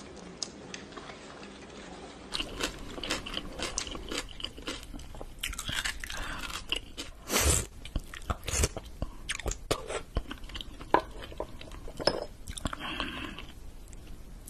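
A person eating raw seafood: wet chewing and many short mouth clicks, with a brief loud slurp a little past the middle as a raw oyster is sucked from its shell.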